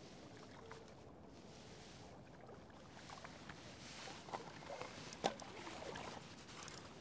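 Shallow lake water lapping and splashing softly at the edge, growing busier over the last few seconds with small splashes and clicks, and one sharp click about five seconds in.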